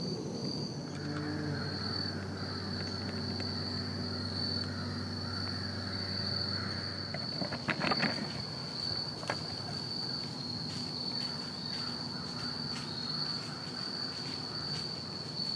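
Steady, high-pitched chorus of insects such as crickets in autumn woodland. A faint low drone sits under it in the first half, and a short cluster of clicks and rustles comes about halfway through.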